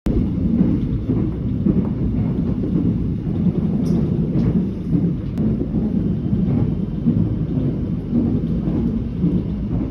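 Steady low rumble of a subway train car in motion, heard from inside the carriage, with a couple of faint clicks around the middle.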